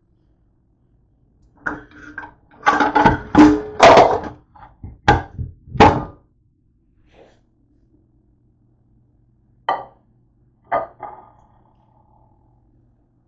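Dishes knocking and clattering together as a plate is pulled out from among other dishes, then two knocks as the plate is set down on the counter, the second ringing briefly.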